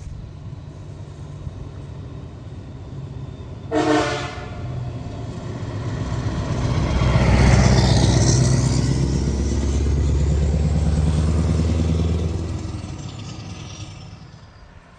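A truck's horn gives one short blast about four seconds in. Then a heavy truck engine swells loud as the truck passes, holds for several seconds and fades away near the end.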